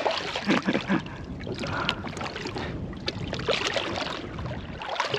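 Wind and water noise aboard a kayak, with scattered small knocks.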